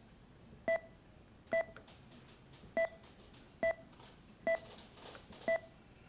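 Simulated patient monitor beeping: six short electronic beeps at one steady pitch, about one a second, like a pulse oximeter's heartbeat tone.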